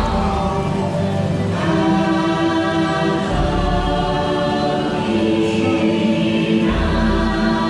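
Choral music: a choir singing long held chords that change every second or two, over a low bass that swells twice in the second half.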